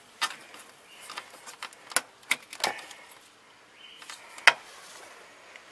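Scattered clicks and light metallic knocks, about half a dozen, the sharpest about four and a half seconds in: a hand handling the open sheet-metal chassis of a gutted audio power amplifier.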